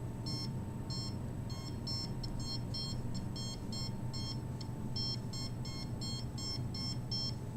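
RF (microwave) meter's audio indicator beeping: short high electronic beeps in quick, uneven runs, sounding the strength of the signal being measured.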